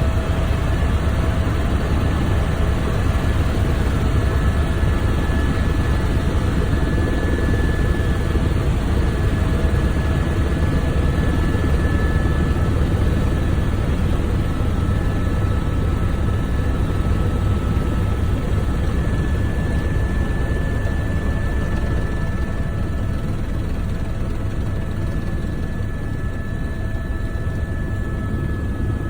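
Helicopter in flight: a steady, loud rotor and engine drone with a deep rumble and a faint constant whine over it.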